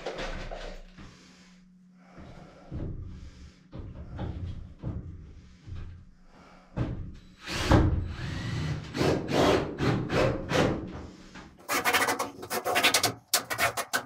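Irregular scraping and rubbing of hand work at a bathroom wall panel, with short gaps. Near the end a fast, dense rattle sets in.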